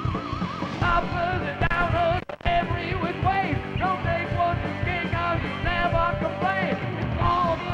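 Heavy metal band playing live: an electric guitar lead line over bass and a steady drum beat. The sound cuts out for a moment a little over two seconds in.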